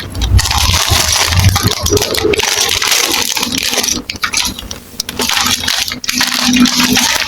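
Small plastic building bricks clattering and rattling against one another as they are handled, with a brief lull about four seconds in.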